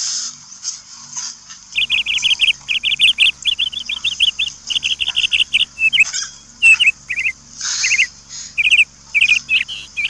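High, sharp chirping calls in quick runs of several notes each, starting about two seconds in and repeating with short gaps, over a steady high hiss.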